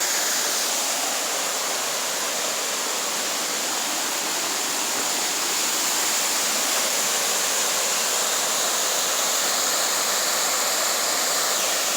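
Waterfall: water falling over rock ledges, a steady, even rush of noise that does not change.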